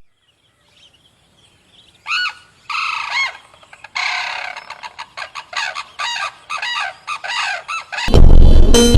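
A bird calling over and over in short, arching high squawks, a few at first and then a quick run of about three or four calls a second.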